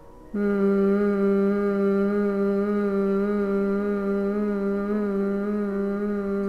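Bhramari pranayama (bee breath): a woman humming one long, steady note on the out-breath. The hum starts about a third of a second in, after a quiet in-breath, and holds one pitch.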